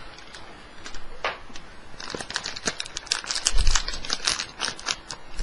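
Plastic bag around a 3.5-inch hard drive crinkling as it is handled, sparse at first and crackling densely through the second half, with a dull thump about three and a half seconds in.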